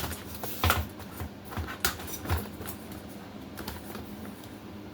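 A handful of light clicks and taps, close together in the first two seconds or so, then fainter scattered ticks: handling noise from objects being moved and adjusted.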